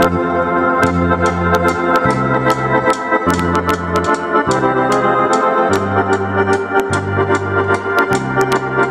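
Live dance-band music: accordion chords over keyboard bass and a drum kit, with a steady beat on the cymbals and bass notes that change about once a second.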